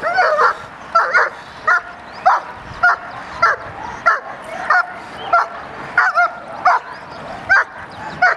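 A 10-month-old German Shepherd barking at a protection-training helper, a steady run of sharp, high barks about one every half second or so.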